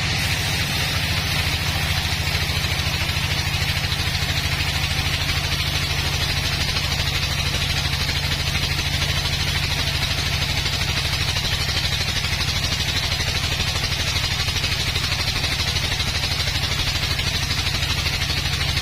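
An engine running steadily at an even speed: a low drone with fast regular pulsing and a hiss above it.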